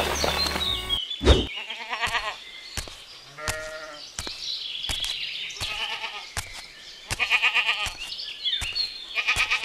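Sheep bleating, five quivering bleats spaced a second or two apart, with light clicks between them. A loud thump comes about a second in.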